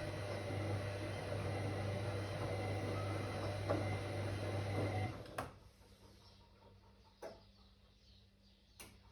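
Whirlpool AWOC 8283 washing machine motor running with a steady hum, stopping about five seconds in. Three sharp clicks follow in the quiet that comes after.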